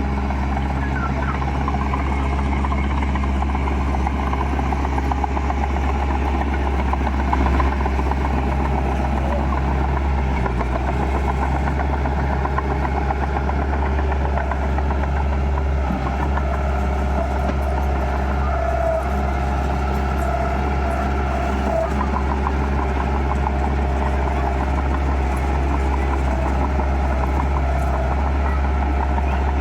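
Heavy diesel engine of earthmoving machinery running steadily under a low, constant hum, with no change in pace.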